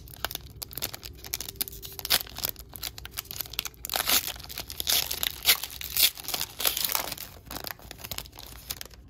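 Foil wrapper of an Upper Deck trading-card pack being torn open by hand, with crinkling and crackling of the foil. The tearing is densest and loudest in the middle and thins out near the end.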